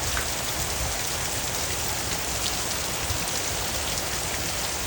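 Steady heavy rain falling, an even hiss with scattered drops pattering on nearby surfaces.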